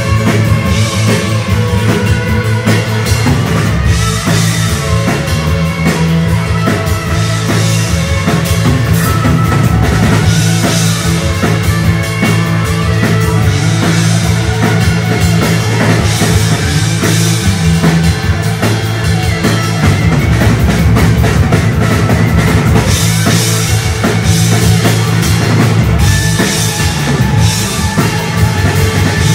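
Live rock band playing an instrumental stretch with no singing: electric guitar over a steady drum kit and bass, cymbals crashing and ringing throughout.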